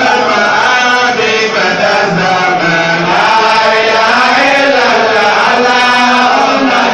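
Group of men chanting a religious recitation together, a continuous melodic chant that rises and falls.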